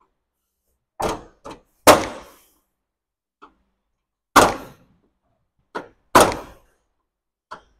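Hammer blows knocking on car body metal, chipping away the paint that binds the front valance to the fender: about seven sharp, irregular knocks, each with a short ring, the loudest around two, four and a half and six seconds in.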